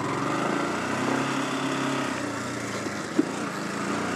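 Yamaha R15 motorcycle's single-cylinder engine pulling under acceleration while riding, its pitch rising over the first second and then holding steady. A short click sounds about three seconds in.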